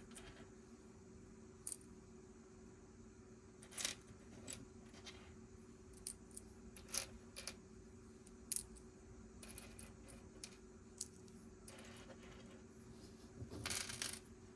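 Plastic Lego pieces clicking and clattering as they are handled and snapped together: scattered light clicks, then a longer rattle of pieces near the end. A faint steady low hum sits underneath.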